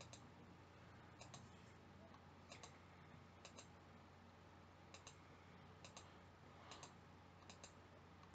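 Faint computer mouse clicks, a quick press-and-release pair about once a second, clicking through pictures one after another.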